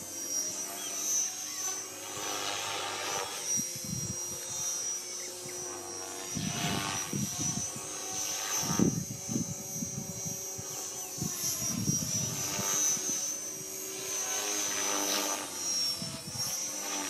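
Radio-controlled model helicopter flying aerobatics: a steady high whine from its drivetrain, with the rotor blades swelling into loud whooshing surges every few seconds as it flips and changes attitude.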